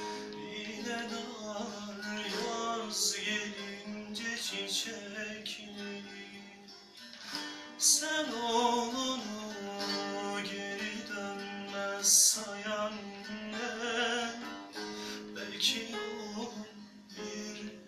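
A man singing a slow Azerbaijani song to his own long-necked saz, with a nylon-string classical guitar playing along; a steady low ringing note sounds under the melody throughout.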